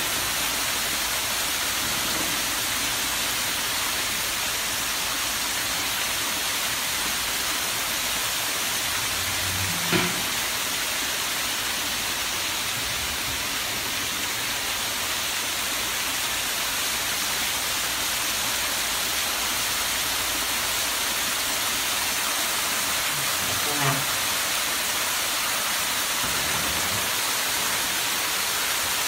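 Small waterfalls splashing down a rock wall, a steady rushing hiss of falling water. Two brief sounds stand out over it, about ten seconds in and again a little before the end.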